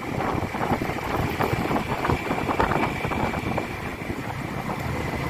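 Wind buffeting the microphone of a phone strapped to a motorcyclist's chest, with no external mic, over the motorcycle's running and road noise. A rough, fluttering rush with no speech.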